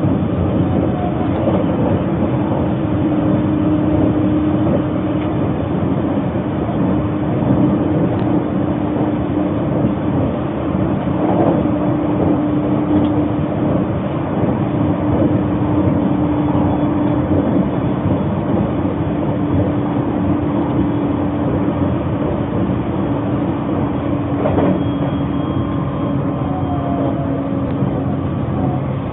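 Narita Express limited-express train running at speed, heard from inside the passenger car: a steady rumble of wheels and running gear with a low hum held under it.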